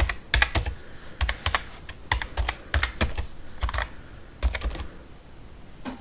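Short bursts of quick clicks and taps with low thumps, coming in groups about once a second with a brief pause near the end.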